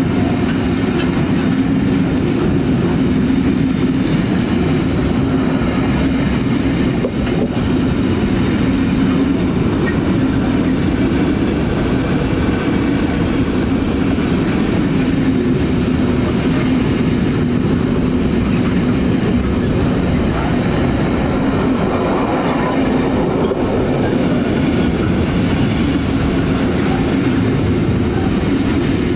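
Intermodal freight train's container and swap-body wagons rolling past, a loud, steady rumble of wheels running on the rails.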